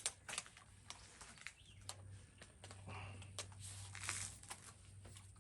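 Faint scattered clicks and light rustling of hands handling gear, over a low steady hum; no shots.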